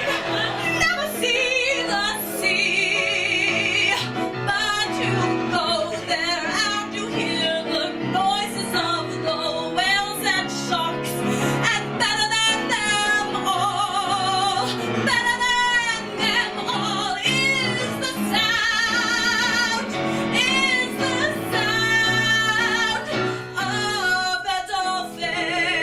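A female singer doing wordless, high warbling glides and squeals in imitation of dolphin noises, with wide vibrato, over a steady musical accompaniment.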